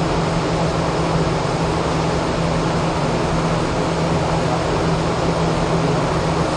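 Clean-room air handling and lab machinery running steadily: an even rush of air with a constant low hum.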